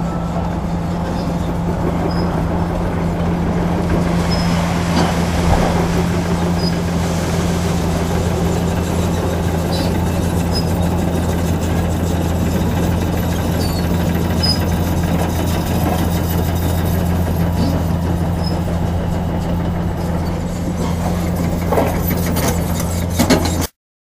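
Diesel engine of a long-reach demolition excavator running steadily with a constant low drone, with a few faint knocks of breaking concrete. The sound cuts off abruptly near the end.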